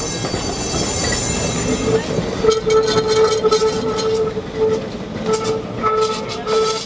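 A tram running on street track, with a rumble throughout. From about two and a half seconds in, a steady tone comes in that breaks off and returns several times, along with sharp clicks and rattles.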